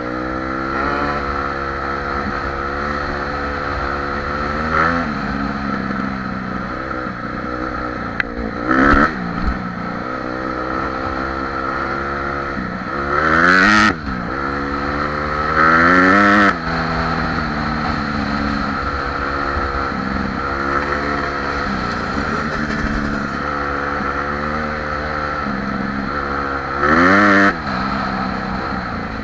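Honda CRF150R dirt bike's four-stroke single-cylinder engine running under way, its pitch climbing and falling back several times as the rider accelerates and shifts. Three loud bursts of noise break in about halfway through and near the end.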